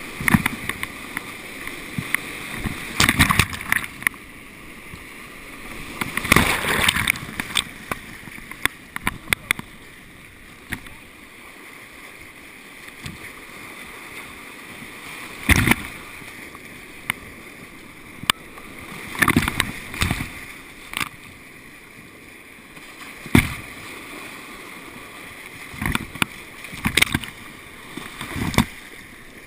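Whitewater rushing past a kayak on a steep mountain creek, with loud, short splashes at irregular intervals as paddle strokes dig in and waves break over the boat.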